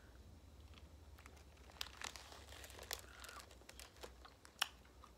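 Faint crinkling of a jelly bean bag being handled, with a few scattered sharp clicks, the loudest a little after four and a half seconds.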